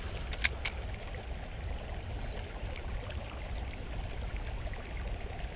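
A small creek running, a steady rushing haze, with a few sharp clicks about half a second in.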